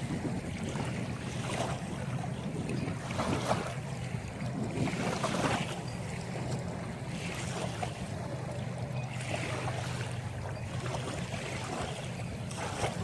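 Water washing and splashing against a sailboat's hull in repeated swishes every second or two, with wind on the microphone over a steady low hum.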